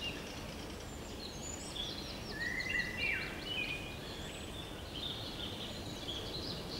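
Several different wild birds singing at once: overlapping chirps, short trills and quick falling whistles, busiest about halfway through, over a steady low background noise.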